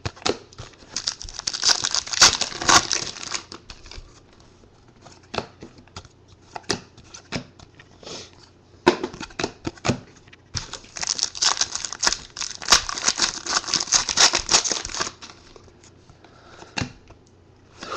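Trading cards being handled and flipped through: cards sliding and rubbing against each other in two longer stretches of rustling, one about a second in and one from about ten to fifteen seconds, with scattered light taps and clicks between.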